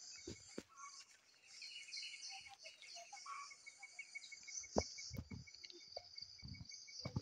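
Insects buzzing in a steady high chorus, with a regular chirp repeating several times a second and faint bird calls here and there. A few soft thumps, the loudest about five seconds in and just before the end.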